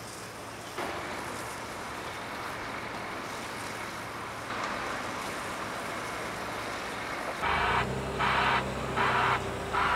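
Steady site machinery noise, then about 7½ seconds in a Caterpillar 966 wheel loader's diesel engine comes up and its reversing alarm starts pulsing: four rasping, hiss-like beeps (not a pure tone), about 0.7 s apart, showing the loader is backing up.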